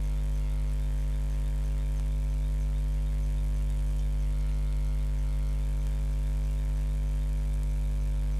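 Steady low electrical hum with a ladder of overtones, unchanging throughout, typical of mains hum picked up in the recording chain.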